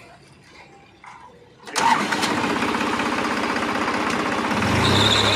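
New Holland 3630 Plus tractor's turbocharged diesel engine starting: it catches suddenly about two seconds in and settles into a steady run, rising briefly in level near the end. The engine is running on a newly replaced turbo.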